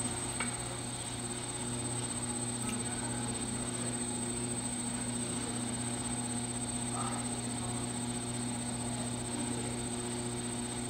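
Electric potter's wheel running with a steady hum as it spins a clay pot.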